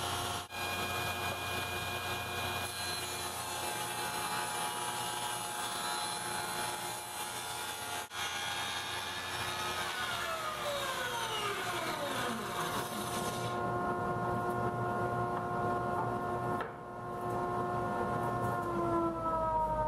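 Table saw running with its blade tilted to 7.5 degrees, making repeated, deeper bevel cuts along the edge of a laminated wooden caster mounting board: a steady blade-and-motor whine. Near the end the pitch starts to fall as the saw winds down.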